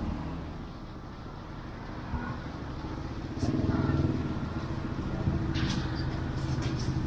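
A motor vehicle engine running close by, swelling about halfway through, with a few short clicks and knocks.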